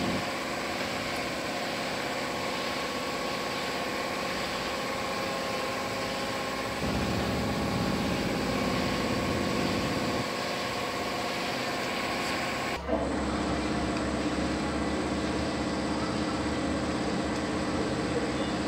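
A steady mechanical hum with several constant tones over a noise bed, like a motor or engine running. Its sound shifts abruptly about thirteen seconds in.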